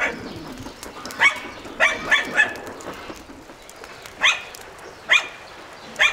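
A dog barking: about seven short, sharp barks, a quick run of three or four in the first half and then single barks roughly a second apart.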